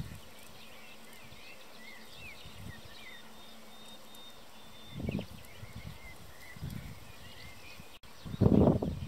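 Faint outdoor bird chorus: many small chirps and short whistled notes from distant small birds, with one thin high note held for about two seconds. A low rumble on the microphone about five seconds in and a louder one near the end.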